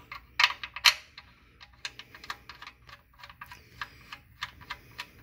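Irregular small sharp metallic clicks and ticks as the oil drain plug is handled and threaded back into the oil pan by hand, with a loud cluster about half a second to a second in.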